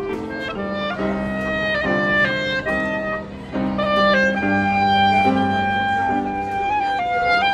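Live café ensemble: clarinet playing the melody in quick changing notes, with a long held note about halfway through, over double bass and grand piano.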